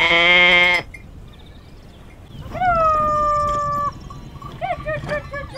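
A dog whining: one long, steady whine and then a string of short whimpers that rise and fall in pitch. A loud, brief pitched call at the very start cuts off abruptly.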